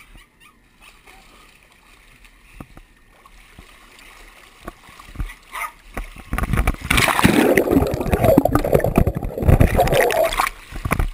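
Dog swimming and paddling in a pool close to a camera at and under the waterline: loud, dense splashing and gurgling from about six seconds in that stops shortly before the end, with only faint small splashes before it.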